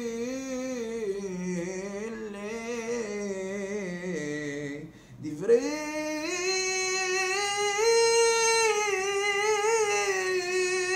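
A man's voice chanting Torah cantillation in the Constantine Jewish tradition: a long drawn-out phrase with ornamented, wavering pitch that drifts lower. He breaks for a breath about five seconds in, then resumes on a higher, held note.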